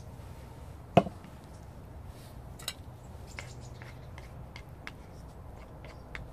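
A frying pan set down on a pumice stone with one sharp knock, followed by light clicks and scrapes of a spoon and wooden spatula working through beans, bacon and rice in the pan.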